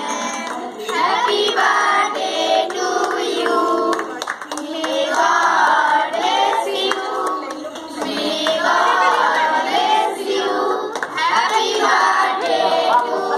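A group of children singing together while clapping their hands along.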